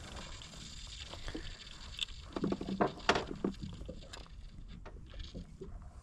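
Small waves lapping against the hull of an inflatable boat at rest on calm water, with a few soft knocks.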